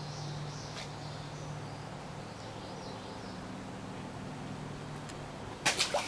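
Steady outdoor ambience by a small stream, with faint high chirping from insects or birds. Near the end comes a short burst of loud knocks and rustling as the hand-held camera is moved.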